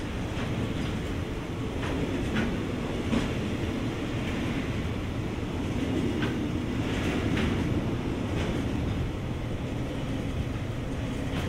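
A JR Freight train rolling past: a steady rumble of steel wheels on rail, with irregular clicks as the wheels cross rail joints.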